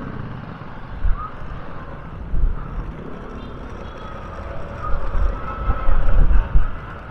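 Motorcycle riding, with wind buffeting the microphone in irregular low rumbles.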